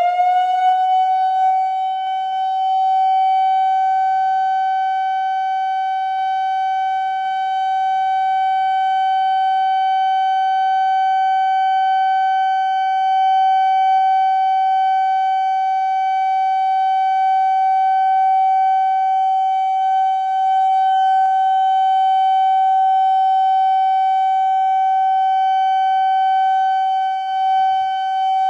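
Whelen 2750 electronic outdoor warning siren sounding a steady alert tone on test, holding one high pitch without wavering. Fainter rising wails repeat underneath it during the first half.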